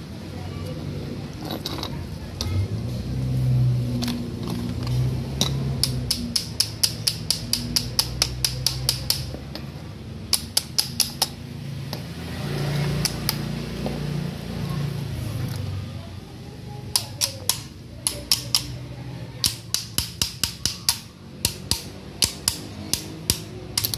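Runs of quick, evenly spaced metallic clicks, about five a second, from hand work on a car's inner CV joint tripod and driveshaft. A low steady hum sits underneath.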